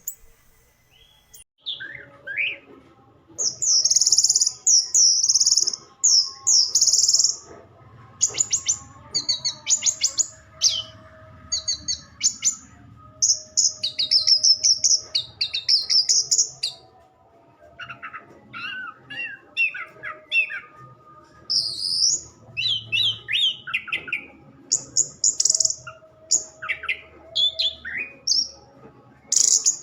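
Orange-headed thrush (anis merah) singing a long, varied song of loud, high, fast phrases separated by short pauses, with lower sweeping notes mixed in.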